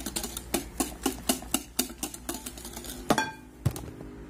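Wire whisk beating a thin egg, sugar and yogurt cake batter in a glass bowl, the wires clicking against the glass about four times a second. A little after three seconds comes a louder, ringing clink on the glass.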